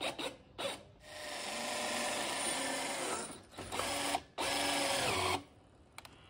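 A robot hopper's motor-driven roller shaft spinning in three runs: a long run beginning about a second in that builds up over its first second, then two shorter runs, each with a steady hum. A few short clicks come first.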